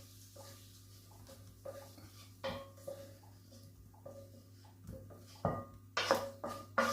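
Kitchen utensils clinking and knocking against a frying pan and dish as onions are put into the pan, with scattered strikes and a louder cluster near the end, over a faint low steady hum.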